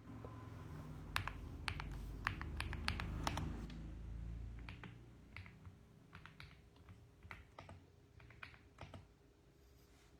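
Typing on a mechanical keyboard: irregular key clicks, a quick flurry in the first few seconds, then slower, scattered keystrokes. A low rumble underneath stops about halfway through.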